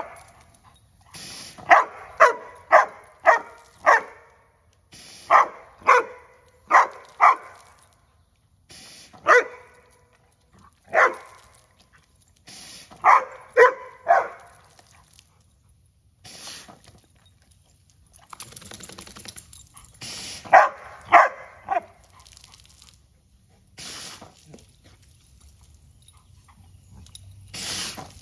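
A dog barking at a water-spraying sprinkler toy, in quick runs of three to five barks with pauses of a few seconds between them.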